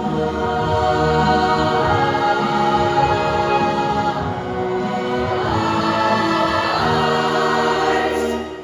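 Show choir singing long held chords over a live backing band, fading out near the end.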